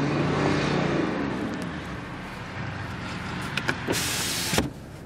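2012 BMW 730d's 3.0-litre inline-six turbodiesel running, its pitch rising and falling once in a brief rev in the first second. Near the end a loud hiss lasts about half a second, and then the engine sound cuts off.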